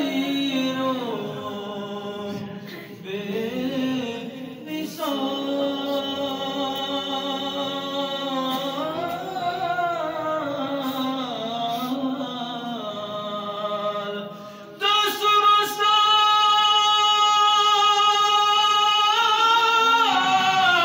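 A man's voice singing Durood-o-Salam, the devotional salutation to the Prophet, unaccompanied through a microphone, in long held notes that slide in pitch. About fifteen seconds in he rises to a louder, higher held note.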